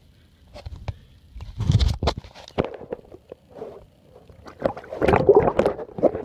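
Water splashing and gurgling as a hand releases a northern pike and the phone's microphone dips underwater. There are two loud surges, about two seconds in and again about five seconds in.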